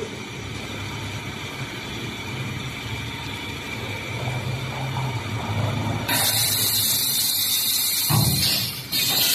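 Double-station fan guard looping and welding machine running with a steady hum. About six seconds in a loud hiss sets in and carries on, and a single knock comes a little after eight seconds.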